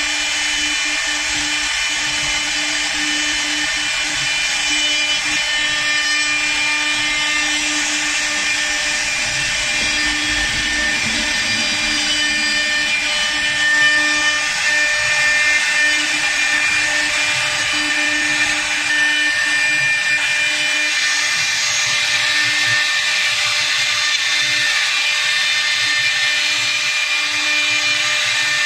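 CNC wood lathe cutting a square wood blank: the spindle runs with a steady whine over the noise of the cutter in the wood.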